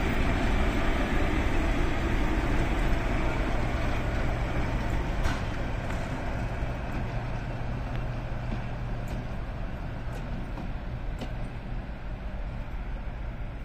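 ST44 (M62-type) diesel freight locomotive's two-stroke V12 engine running with a deep steady hum as it pushes a rake of hopper wagons, slowly fading as it moves away. A few faint clicks.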